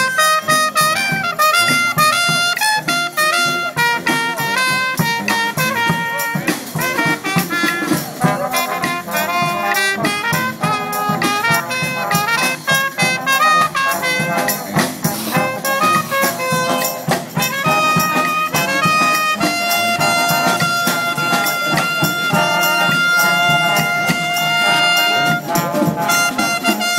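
Brass band playing a lively jazz tune, with trumpet, saxophones, trombone and sousaphone. About two-thirds of the way through, the horns hold a long chord for several seconds, then the melody resumes briefly.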